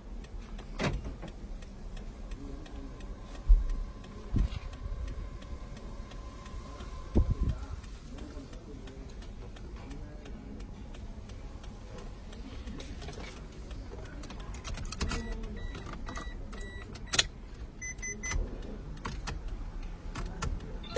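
Car engine idling under a steady low rumble, with scattered knocks and clicks and a few short high electronic beeps about fifteen to eighteen seconds in.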